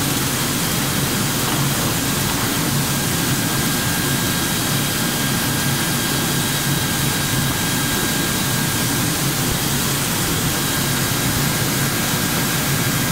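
PNMP-800 PVC pulverizer mill running steadily while grinding PVC: a loud, even rushing noise with a thin high whine over a low hum.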